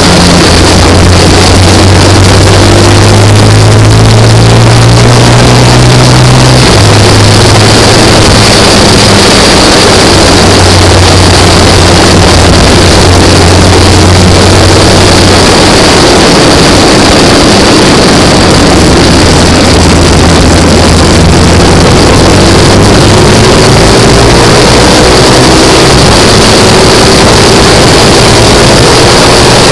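Classic racing sidecar outfit's engine running hard at racing speed, heard from on board with heavy wind noise over the microphone. The engine note climbs over the first few seconds, drops suddenly about seven seconds in, and climbs again near the end.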